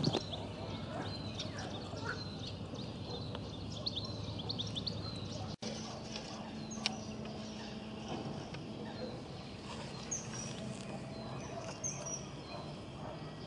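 Small birds chirping and singing, with many quick high chirps in the first few seconds and scattered calls later, over a steady low background hum. The sound drops out for an instant about halfway through.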